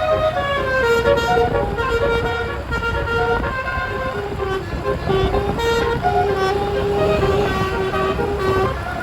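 Roof-mounted 12-note telolet air horn playing a melody, its tones stepping quickly from note to note over a steady low rumble.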